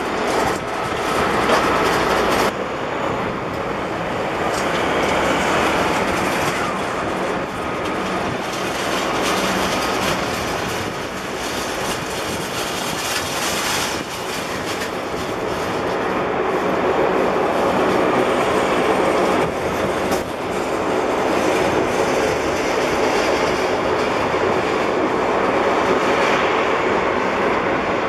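Turboprop engines of taxiing Bombardier Q400 airliners (Pratt & Whitney PW150A) running with propellers turning, a loud steady droning rumble. The sound changes suddenly a few times.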